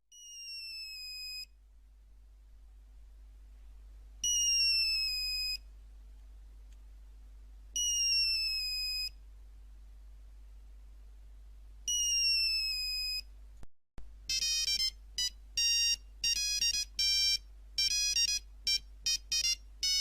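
Old Nokia mobile phone ringtones. A descending electronic chirp rings four times, about every three and a half seconds. After a brief cut, a quick melody of short beeping notes starts. A low hum runs underneath.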